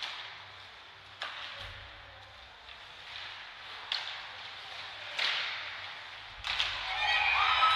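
Ice hockey game sounds: a few sharp stick-and-puck impacts over a faint arena background, then a crowd beginning to cheer and shout near the end.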